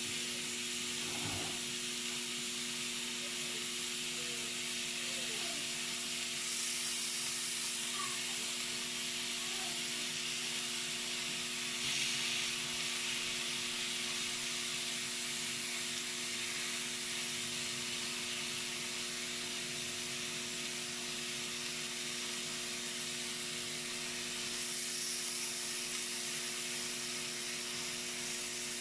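Thin strips of seasoned meat sizzling on an electric grill plate: a steady hiss that swells briefly a few times as the strips are turned and pressed with a fork. A steady low hum runs underneath.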